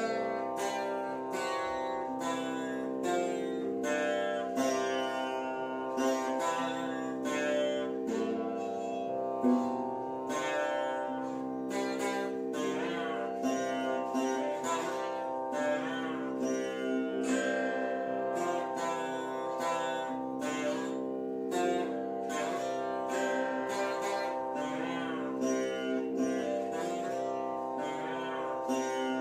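Saraswati veena played solo in raga Yamankalyani: a run of plucked notes over steadily ringing drone strings, with sliding, oscillating pitch bends (gamakas) on the melody notes, more of them from about twelve seconds in.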